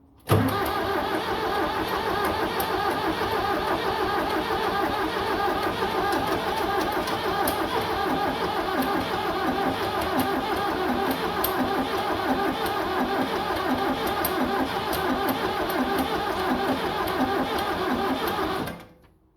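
A 7610 diesel tractor's starter cranking the engine for about eighteen seconds with an even chugging rhythm, without the engine catching, then stopping abruptly. The diesel will not fire, and the owner is unsure whether it lacks compression, since fuel is reaching the lift pump.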